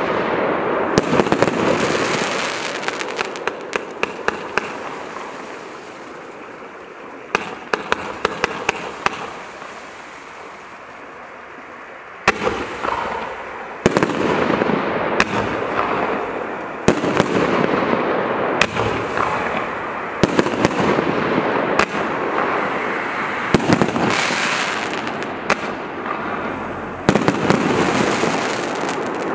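Celtic Fireworks X-TREME compound firework cake (165 shots, 20–30 mm tubes) firing in rapid succession: sharp launch reports and bursting shells over continuous crackling. It thins out for a few seconds early on, with a quick flurry of shots, then fires densely from about twelve seconds in to the end.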